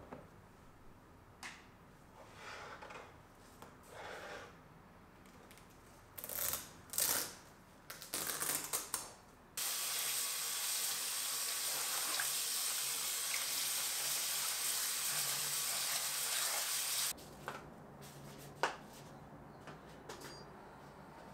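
Plastic-rimmed cylindrical air-purifier filters being handled, with scattered knocks and rustles, then a tap running into a basin as something is washed by hand, a steady hiss for about seven seconds that starts and stops abruptly. A few light clicks follow near the end.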